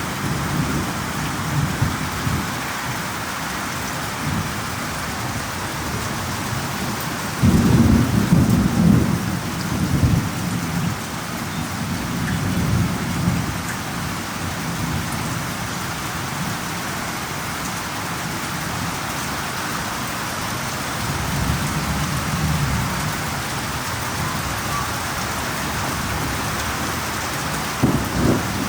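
Thunderstorm: steady rain with rolling thunder. The loudest rumble comes about eight seconds in and lasts a couple of seconds, with weaker rumbles later and a short one near the end.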